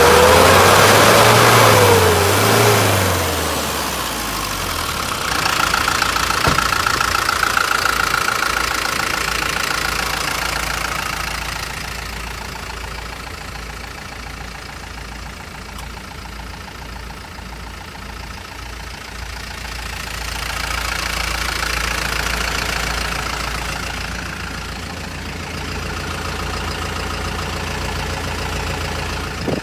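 Hino Dutro truck's turbocharged diesel engine revved twice, pitch rising and falling, then running at a steady idle.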